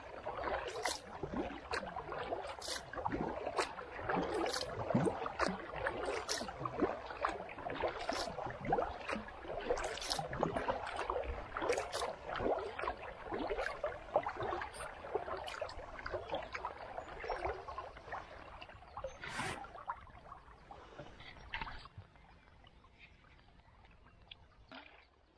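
Kayak paddle strokes in calm river water: the blades dipping and splashing, with water dripping and gurgling, made up of many small sharp splashes. About 21 seconds in the splashing thins out and grows quieter.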